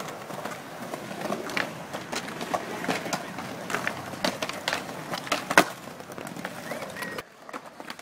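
Skateboard wheels rolling on concrete, with repeated sharp clacks of the board and one loudest clack about five and a half seconds in. The rolling noise drops off suddenly near the end.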